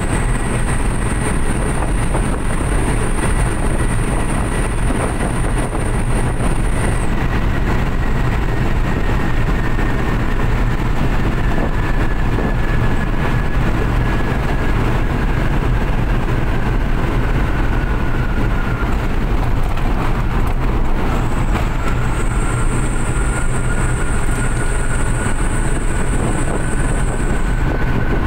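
Suzuki New Carry pickup, loaded with about 800 kg, running at full speed on the highway, heard from inside the cab: a steady engine drone with road and wind noise. A faint whine slowly drops in pitch and later rises a little, and a faint high whistle comes and goes twice.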